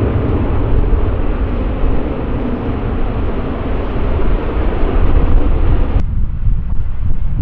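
Airliner engine noise, a steady rumble with a strong low end; about six seconds in the upper part of it cuts off abruptly, leaving only a low rumble.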